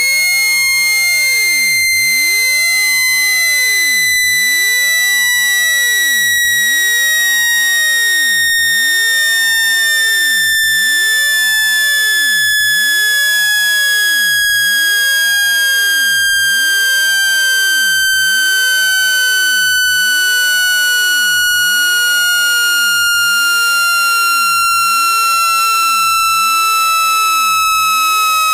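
Continuous electronic test tone gliding slowly down in pitch: a speaker-cleaning frequency sweep played at full volume to shake water and dust out of a phone speaker.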